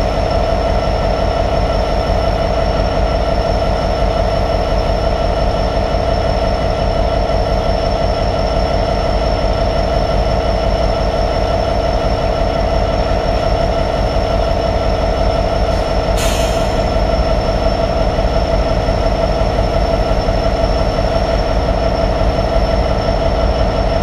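Class 66 diesel locomotive's EMD two-stroke V12 engine idling steadily while stabled, with a steady high whine above the engine note. A short hiss about sixteen seconds in.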